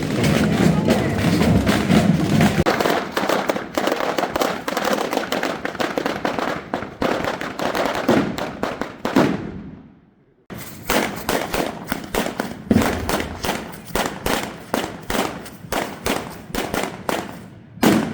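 Fireworks going off in quick, rapid-fire bangs and crackles. They drop out to near silence briefly about ten seconds in, then start again.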